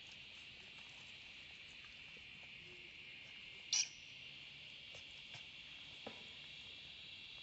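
Steady high-pitched insect chorus. About four seconds in there is a single short, sharp high squeak.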